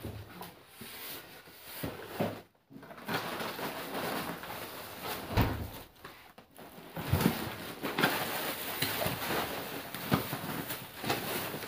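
A styrofoam box being handled and opened by hand on a tiled floor: scattered knocks, scrapes and rustles, with a few sharper taps in the second half.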